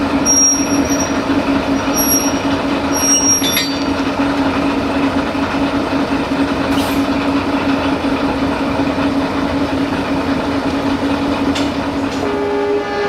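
LDH45 diesel-hydraulic shunting locomotive running with a steady low engine hum while it moves slowly, with a few short high-pitched wheel squeals in the first few seconds. Near the end a higher steady tone with several pitches takes over.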